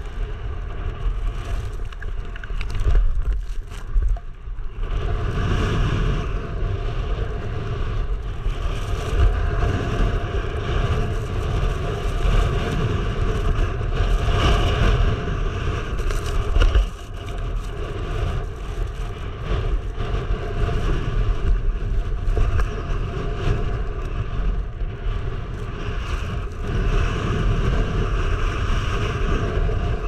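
Strong wind buffeting the microphone of a helmet-mounted action camera, a loud unsteady rumble, with the hiss and scrape of skis running through snow. The rumble grows heavier about four seconds in and dips briefly around the seventeen-second mark.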